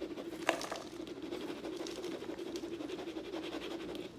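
Dry, freshly decarboxylated cannabis sliding and shaking out of the Ardent Flex's metal canister into a plastic tub: a steady rustle with many small, light ticks.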